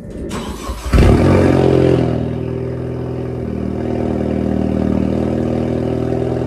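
2016 Ford Focus ST's turbocharged 2.0-litre four-cylinder starting up, heard at its twin tailpipes. It catches about a second in with a brief flare of revs, then settles into a steady idle.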